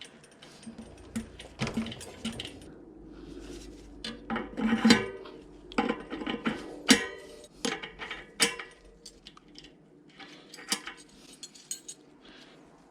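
Irregular metallic clinks and knocks of bicycle hub parts and tools being handled on a workbench, with a few louder clanks scattered through.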